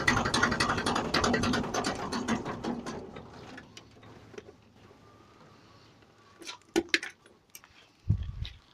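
Chain-driven transporter of a homemade potato harvester, powered by a tractor's PTO shaft, clattering rapidly. It dies away over about three to four seconds as the drive winds down. A few scattered clicks and knocks come near the end.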